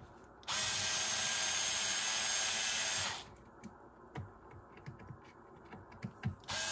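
A small Ryobi cordless electric screwdriver runs steadily for about two and a half seconds as it backs a screw out of a radio's metal chassis, then stops. A few light clicks of handling the screw follow, and the screwdriver starts again near the end.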